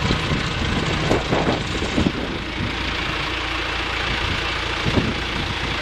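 An engine running steadily at idle, with a few short knocks about one to two seconds in and again near the end.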